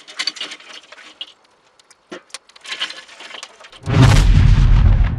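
Burning charcoal in a chimney starter crackling and popping with sharp irregular snaps. About four seconds in, a loud, deep rumbling whoosh sets in and carries on.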